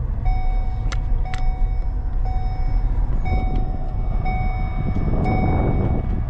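Low, steady road and engine rumble inside a moving car's cabin, with an in-car warning chime beeping about once a second, six times. Two short clicks come about a second in.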